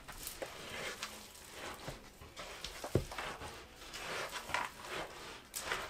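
A spoon stirring and folding chunky cookie dough with oats, chocolate chips and M&Ms in a mixing bowl: irregular scraping and squishing with small clicks, and one duller knock about three seconds in.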